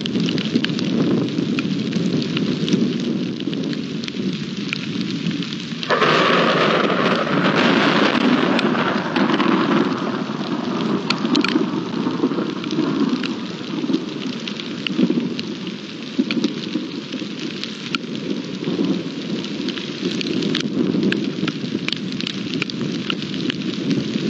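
Thunderstorm: steady rain falling, with scattered drops ticking and a low rumble of thunder underneath. About six seconds in, a sudden, louder crack of thunder breaks out and dies away over a few seconds.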